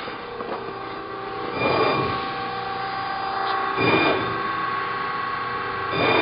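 Amada RG-50 hydraulic press brake running: a steady machine hum, with a louder surge about every two seconds.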